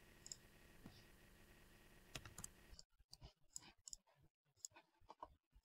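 Near silence with faint, scattered computer mouse clicks.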